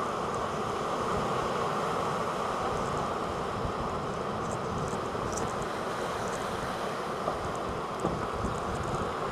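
Hurricane wind buffeting the microphone in gusts over a steady rush of surf.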